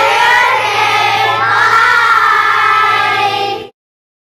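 A group of children singing together in unison, holding long drawn-out notes over a steady low hum. It cuts off abruptly about three and a half seconds in.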